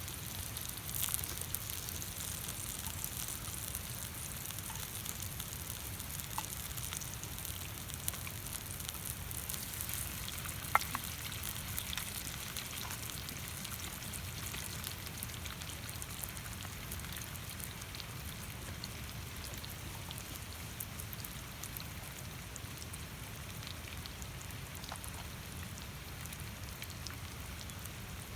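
Food sizzling steadily on a hot steel griddle over a campfire, a dense hiss with fine crackles and occasional sharp pops, one louder pop about eleven seconds in.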